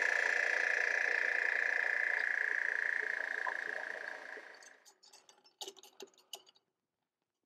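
Drill press boring a hole through a flat steel plate, the bit cutting with a steady high squeal that fades away after about four and a half seconds. A few light metal clicks and knocks follow.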